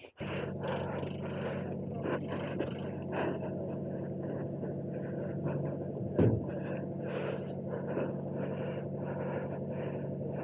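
Motorcycle engine idling steadily, with a short sharp knock about six seconds in.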